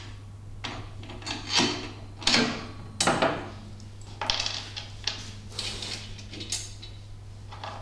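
Irregular clanks, knocks and scrapes of metal parts being handled and fitted as the rear-seat safety handles go onto a golf cart, with a steady low hum underneath.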